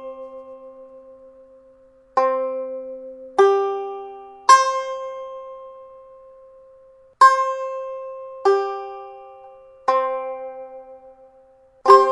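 Strumstick, a three-string fretted drone instrument, strummed with all strings barred at the third fret. Seven single strums at uneven intervals, each left to ring out and fade.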